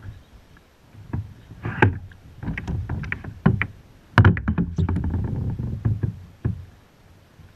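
Knocks, bumps and clatter on a Jackson Cuda 12 fishing kayak, getting louder and busier from about four seconds in with a low rumbling noise under them, then dying down after about six and a half seconds.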